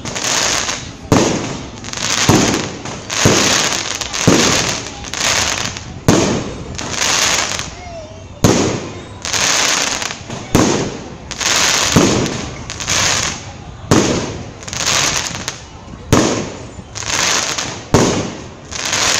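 Aerial fireworks bursting overhead in a steady series, about one loud bang a second, each bang trailing off in an echoing tail before the next.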